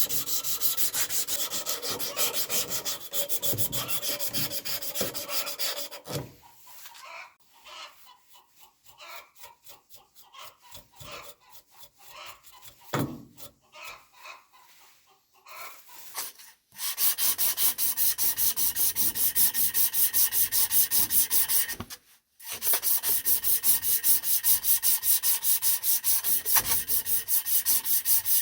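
Hand sanding, rapid even back-and-forth strokes at several a second. Quieter and more scattered through the middle, then hard again, with a brief pause a little past two-thirds of the way through.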